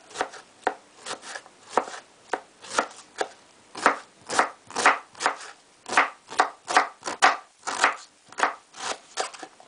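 Kitchen knife slicing white cabbage into thin shreds on a wooden cutting board: a steady run of crisp cuts, about two a second, each blade stroke ending in a knock on the board.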